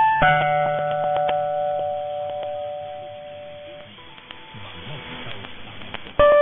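Chime notes received as a 1422 kHz medium-wave AM broadcast, sound cut off above about 4 kHz. One note is struck just after the start and rings out for about four seconds, then hiss for about two seconds, then another note is struck near the end.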